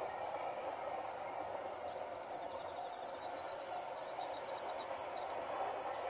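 Distant electric train running along the track, a steady far-off rumble, with an insect trilling steadily at a high pitch and a few quick insect chirps about four seconds in.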